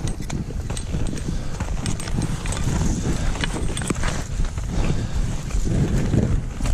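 Skis sliding and scraping over snow on a fast downhill run, with many quick knocks and clatters from skis and poles over a steady low rumble.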